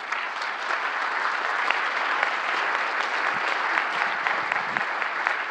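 Audience applauding steadily, many hands clapping together.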